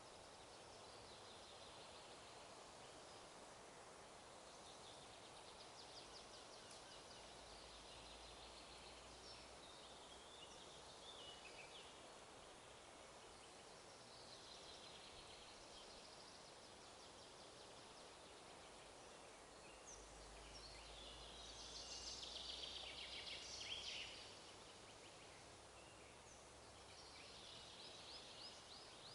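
Faint forest ambience: small songbirds singing in short phrases of rapid trilled notes every few seconds over a soft steady hiss of wind. The loudest phrase comes a little after twenty seconds in.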